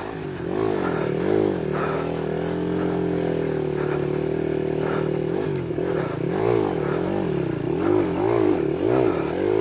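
Monkey bike's small engine running steadily, then revved up and down over and over, about twice a second, from about halfway through.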